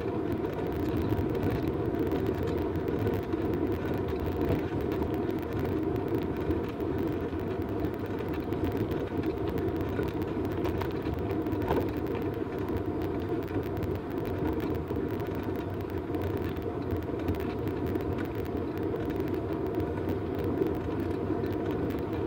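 Steady riding noise of a bicycle rolling along a paved path, tyres on asphalt and air rushing past the handlebar-mounted camera.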